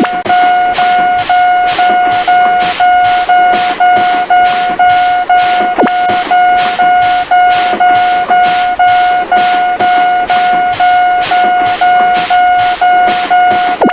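Railroad level-crossing warning alarm ringing: a steady, high alarm tone with rapid, evenly spaced bell strikes about two and a half times a second.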